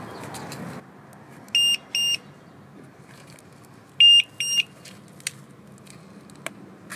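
The built-in buzzer of a plug-in LiPo cell voltage checker sounds two pairs of short, shrill beeps about two seconds apart, while the checker is plugged into and pulled from the battery's balance lead. A few small sharp clicks follow.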